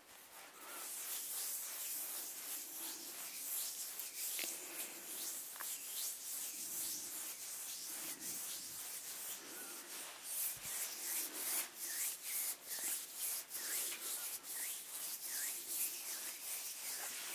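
Bare palms rubbing together close to the microphones, a dry hiss that swells and fades with each stroke. The strokes come quicker and more sharply pulsed in the second half.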